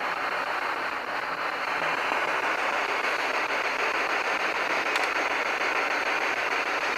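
A steady hiss of noise, with a faint click about five seconds in.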